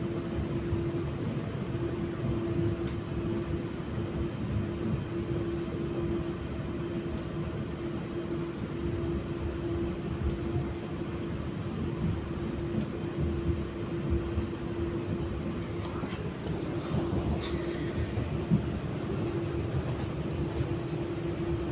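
Inside an Auckland AM-class electric multiple unit running along the track: a steady rumble of wheels on rail with a constant hum, and a few faint clicks.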